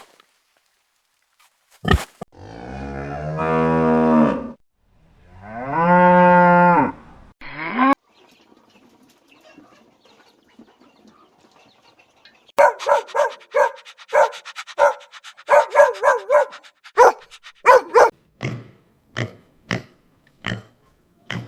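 Cattle mooing: two long, drawn-out moos a couple of seconds in, then a short one. Later comes a long run of quick, short animal calls in rapid succession, followed by a few spaced short calls near the end.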